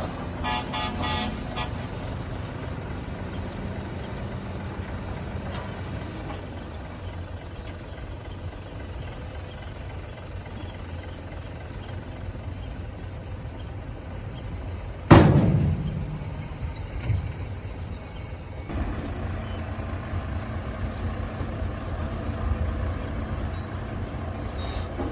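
Heavy diesel truck engine running steadily, with a pulsing beep in the first two seconds. About fifteen seconds in comes a loud, sudden hiss of air that trails off over a second, typical of air brakes releasing.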